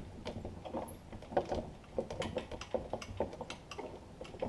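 Hitch pin being worked into a riding tractor's rear hitch: a string of short, irregular clicks and knocks. The pin is going in dry and stiff, wanting grease.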